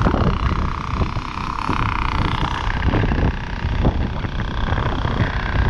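Strong gusty wind buffeting the action camera's microphone, a heavy uneven rumble, with a steady higher drone that fades out about halfway through.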